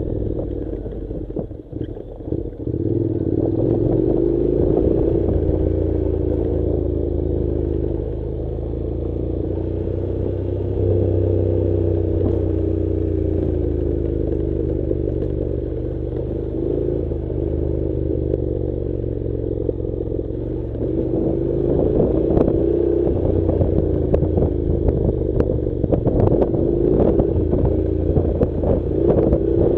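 Honda NC700 parallel-twin motorcycle engine pulling at low revs over a rough dirt track, its pitch rising and falling with the throttle and briefly dropping off about two seconds in. Loose stones and the bike's suspension clatter, more often near the end.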